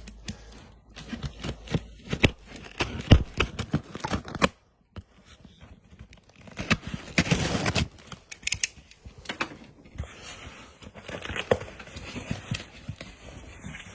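A postal parcel being opened by hand: scattered clicks and knocks of handling, with a longer tearing sound about seven seconds in.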